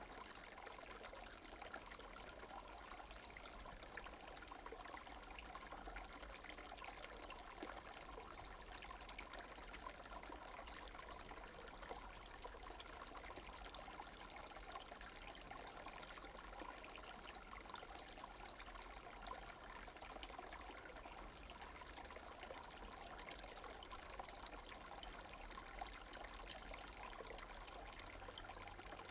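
Small half-frozen stream running over its bed past a fallen log, a quiet, steady murmur of flowing water.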